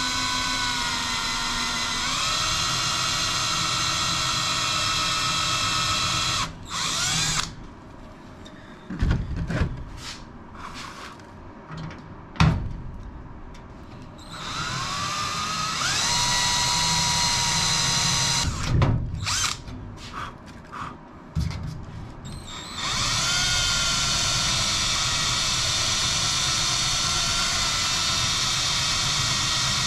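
Cordless drill drilling out the heads of faulty rivets in an aluminium wing spar, in three long runs of steady whine. Short knocks and clicks come in the gaps between the runs.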